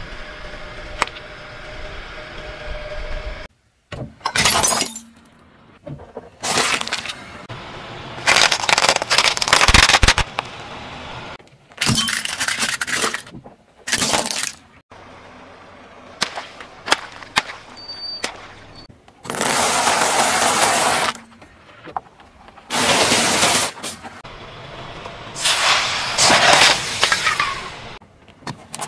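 A car tyre rolling over small plastic objects on asphalt and crushing them: a string of about ten separate cracks and crunches, each lasting up to a couple of seconds, following one another with abrupt breaks between.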